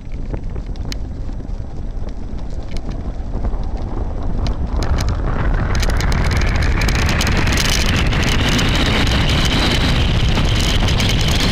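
Wind rushing over the microphone and a soapbox cart's wheels rolling on tarmac as it coasts downhill with no engine. The noise grows louder over the first six seconds or so as the cart gains speed, then holds steady, with scattered clicks and rattles.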